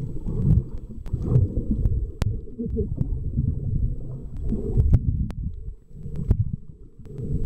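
Muffled underwater sound picked up by a submerged camera: an uneven low rumble of water moving against the housing, with a few sharp clicks scattered through it.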